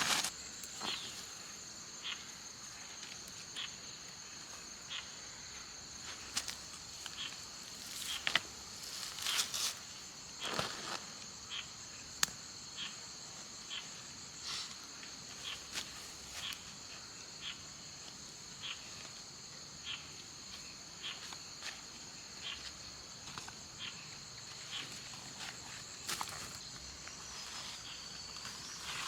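A steady high-pitched chorus of insects in the forest, several shrill tones held together, with short soft sounds of activity close by repeating about once or twice a second.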